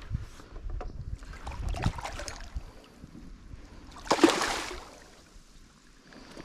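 Water splashing as a hooked salmon is landed, with a loud splash about four seconds in, and wind buffeting the microphone.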